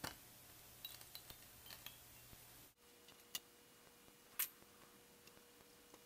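Near silence broken by a few faint clicks and taps from a Dell desktop motherboard being handled and turned over. The clearest, a short click, comes about two-thirds of the way through.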